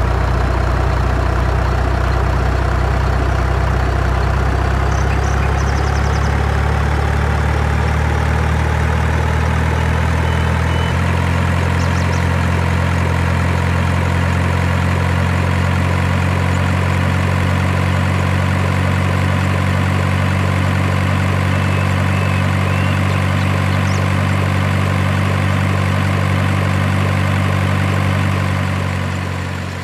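Heavy truck engine idling: a loud, steady low drone that shifts slightly in pitch about eleven seconds in, then fades out near the end.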